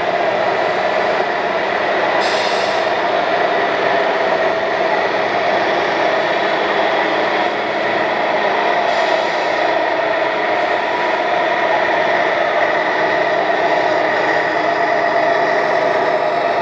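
Steady diesel-engine drone from the sound modules of 1:14 scale RC trucks, a continuous hum with a constant higher tone over it.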